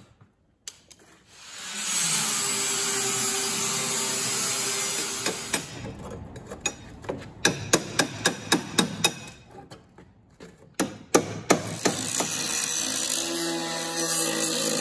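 A power tool spins up and runs steadily on the rusty floor steel of a 1970 MG Midget body. It stops, and a hammer strikes the metal about a dozen times in an uneven run of a few blows a second. Near the end an angle grinder starts cutting the steel.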